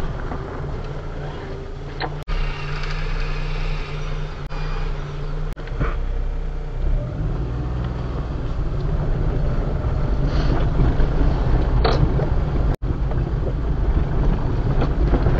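A Daihatsu Atrai kei van's small 660cc turbocharged engine pulling at low speed, with tyres crunching over a rough gravel track, heard from inside the cab. There is a steady low rumble with a few short knocks and rattles from the bumps.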